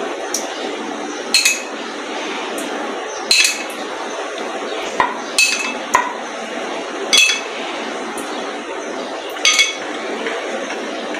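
A metal spoon clinking against a glass baking dish and bowl as yogurt is spooned out: several sharp clinks at irregular intervals, some with a short ring, over a steady background hiss.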